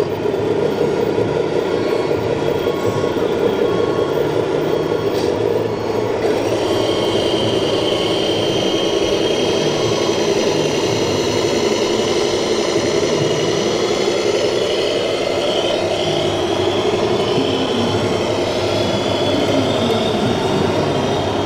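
RC model trucks driving on a course, with a steady truck-engine sound from their sound modules. A high, wavering motor whine joins about six seconds in.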